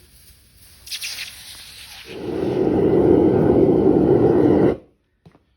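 A loud, steady rushing roar that starts about two seconds in and cuts off abruptly near the end, after a brief hiss about a second in.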